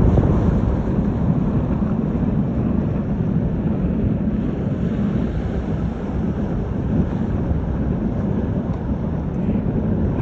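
Steady wind rumbling on the microphone by the sea, with no clear tones or separate strokes.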